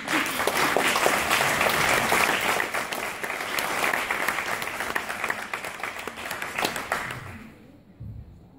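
Audience applauding, starting as the music stops and dying away after about seven seconds.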